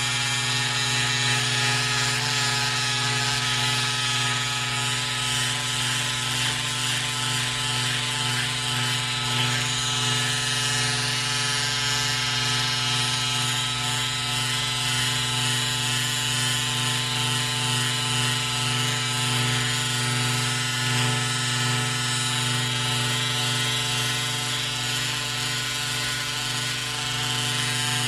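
Electric razor running steadily: an unbroken, even hum with a strong low pitch and many overtones above it.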